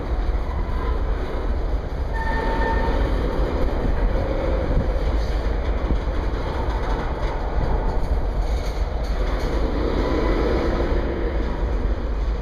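Freight train tank cars rolling past with a steady rumble of steel wheels on rail. There is a brief, faint wheel squeal about two seconds in.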